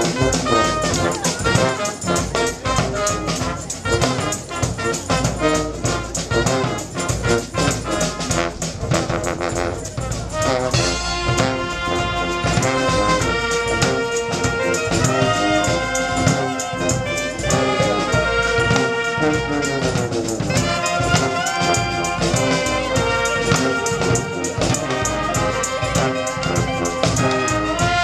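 Street band of saxophones, brass and drums playing: a busy drum beat under the horns for the first ten seconds, then the horns play long held melody notes from about eleven seconds in.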